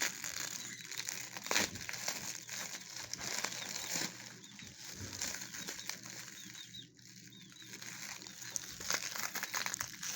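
Packing material rustling and crinkling in irregular bursts of small crackles as a boxed figurine is unwrapped by hand.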